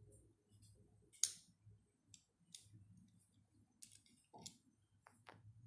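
Small plastic Lego bricks clicking as pieces are handled and pressed onto a model car: a few sharp, separate clicks about a second apart, the loudest about a second in.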